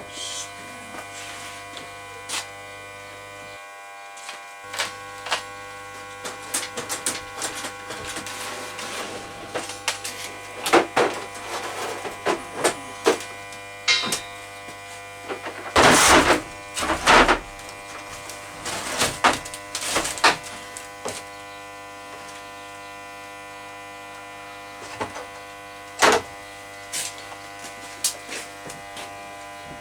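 A steady machine hum with scattered clicks, and a few louder knocks or clatters partway through.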